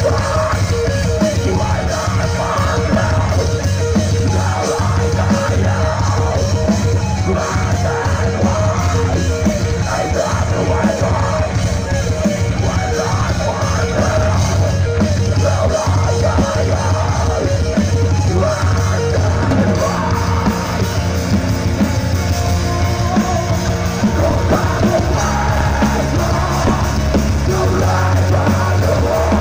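Loud live rock music from a band on stage, heard from within the crowd: electric guitars, bass and drums through the PA, with a singer's voice over them.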